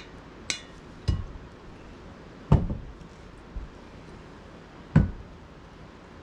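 A light glass clink with a short ring, then three knocks of tableware being set down on a table, the last two the loudest.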